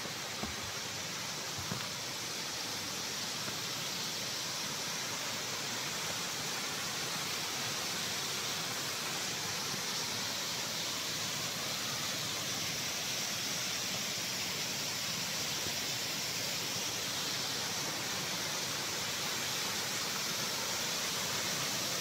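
Waterfall spilling down a rock face into a pool: a steady rushing hiss of falling water, getting gradually a little louder.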